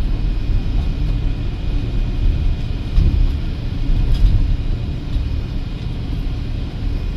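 Cabin noise inside a moving Irizar i6S Efficient coach: a steady low rumble of engine and tyres, with a faint steady high whine and a couple of slightly louder bumps around the middle.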